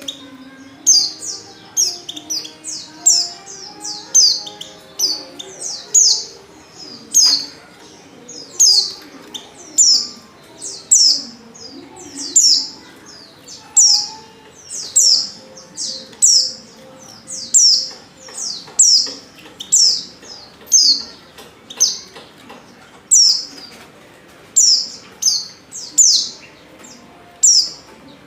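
Female white-eye (pleci) giving short, sharp, high chirps over and over, about one or two a second and sometimes in quick pairs. This is the female call used as a lure to set male white-eyes singing.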